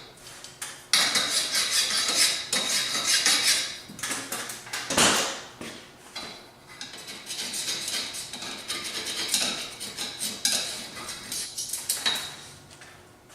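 Metal clinking and rattling from work on steel roll-cage tubing and hand tools: stretches of busy clatter with sharp knocks. The loudest run comes about a second in, a single sharp knock comes midway, and another run follows near the end.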